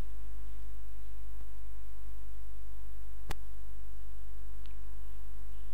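Steady electrical mains hum with a deep 50 Hz drone and a stack of overtones, and a single sharp click a little over three seconds in.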